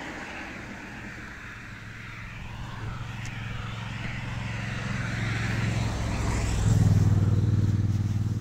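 A motor vehicle's engine hum drawing closer and growing louder, loudest about seven seconds in, over a steady rushing hiss.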